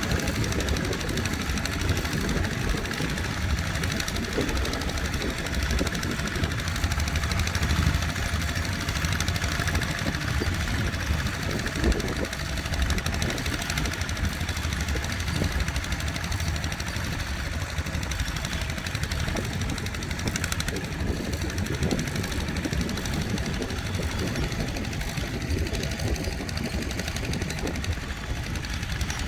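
Tractor engine running steadily, a continuous low rumble.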